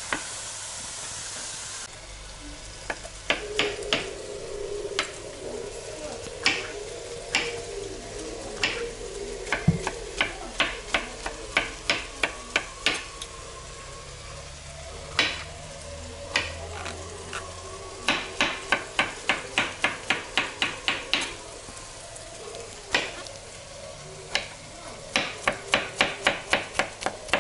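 Chef's knife chopping mushroom stems on a plastic cutting board, in quick runs of sharp strikes about four a second with pauses between. Bacon sizzles in a frying pan underneath.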